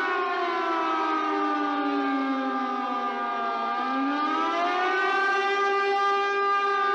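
Tsunami warning siren wailing, several tones sounding together. Its pitch falls slowly for about three and a half seconds, then rises again and holds steady. The siren signals an evacuation alert.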